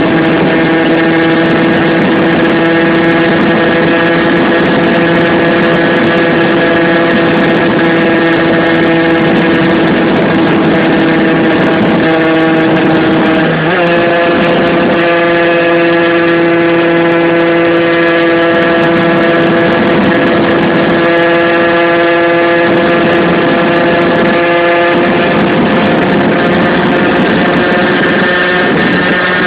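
Tuned 50cc two-stroke moped engine, built with a Top Perf cast-iron kit, a 21 mm Dell'Orto PHBG carburettor and a homemade expansion exhaust, running hard at steady high revs. The revs dip for a moment about halfway through and come back slightly higher, and shift again near the end.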